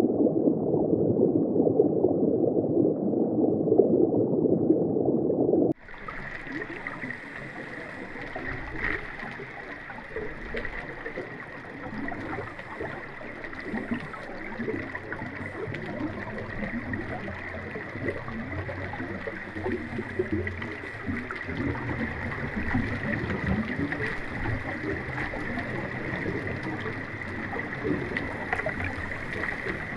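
Underwater drone's own recorded sound: muffled underwater water noise, loud and dull for the first few seconds. After an abrupt cut about six seconds in, it turns to a quieter, wider hiss with a steady high whine from the thrusters.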